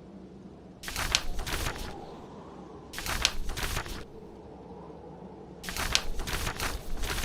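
Paper pages of a book being turned, three rustling turns each lasting about a second, the last one longer. Beneath them runs a low, steady bed of blizzard wind and fireplace.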